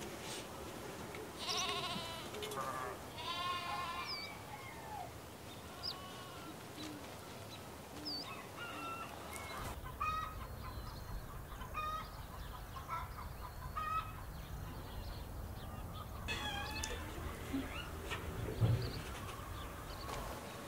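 Farmyard animal calls: a few wavering bleat- or cluck-like calls in the first seconds, then scattered short chirps of small birds.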